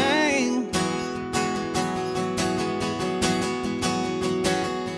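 Acoustic guitar strummed in a steady rhythm, full chords ringing between strokes. A sung note trails off in the first half second before the guitar carries on alone.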